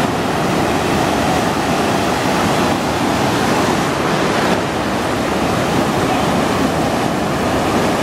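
Small ocean waves breaking in shallow surf: a steady, unbroken rush of white water.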